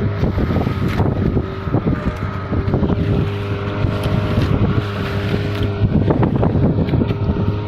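A boat's engine running steadily with an even hum, mixed with wind buffeting the microphone and rough, irregular rushing noise.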